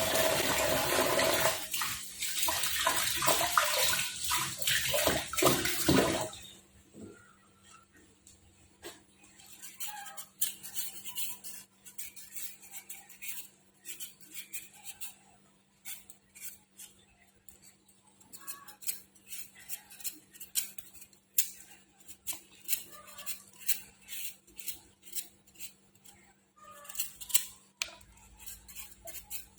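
Running tap water that shuts off about six seconds in, followed by light, irregular clicks and scrapes of kitchen utensils and dishes.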